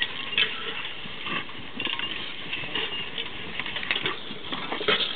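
Team of draft horses pulling a walking plow: irregular clinks, knocks and thuds from the harness, hooves and plow over a steady outdoor hiss.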